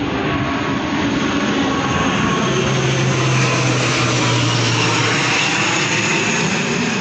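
An aircraft flying overhead: a loud, steady rushing noise that builds to a peak in the middle and eases off toward the end, with a low hum for a few seconds at its height.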